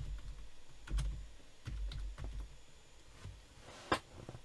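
Typing on a computer keyboard: an irregular run of key clicks with soft low thumps, then a single louder click just before the end.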